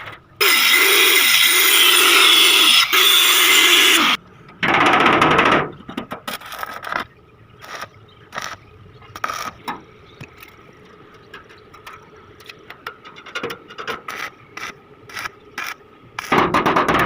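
Electric arc welding on a steel door lock: a loud hiss and crackle for about four seconds, then a short burst, then a run of brief crackling strikes, and one more loud burst near the end.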